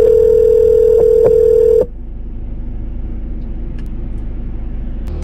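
Telephone ringback tone on an outgoing call: one steady ring about two seconds long while the number rings at the other end, then a pause of low hum before the line connects near the end.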